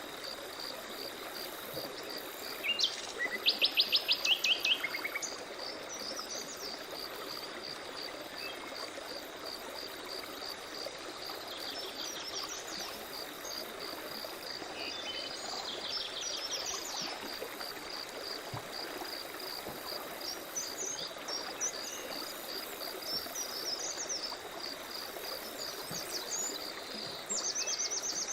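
Forest ambience: birds singing in short phrases, the loudest a rapid run of evenly spaced notes about three seconds in, over a steady pulsing insect chirr and a soft hiss of running water.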